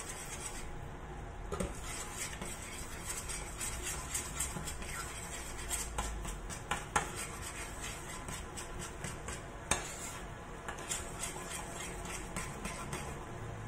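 A metal spoon stirring a thick cheese sauce in a stainless steel saucepan, scraping steadily round the pan with small clicks and a few louder clinks against its side.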